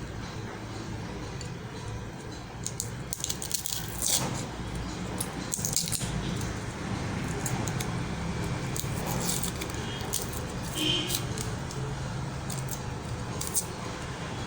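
Scattered light clinks and rattles of small hard objects being handled, over a low steady hum.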